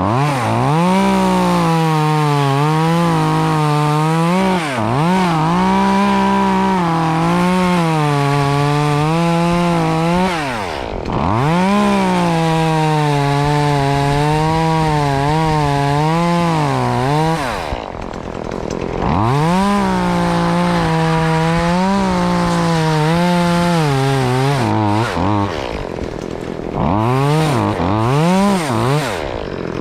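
Chainsaw running at full revs and cutting queen palm fronds, its pitch wavering under load. The engine drops back toward idle briefly three times, about a third of the way in, past halfway and near the end, then blips up in short revs.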